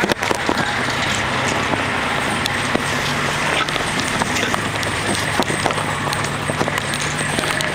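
A pirate-ship float towed on a trailer, heard from on board: a steady low vehicle hum under constant irregular knocks and rattles from the rig as it moves.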